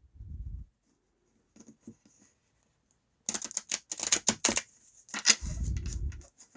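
A deck of tarot cards being riffle-shuffled on a wooden table: a rapid run of card edges flicking past each other for about a second, midway through. Then a low rub as the two halves are pushed together on the tabletop.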